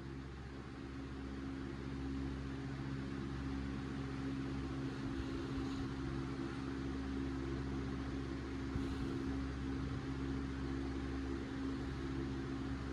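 A steady machine hum with a low drone, growing slightly louder over the first two seconds and then holding even.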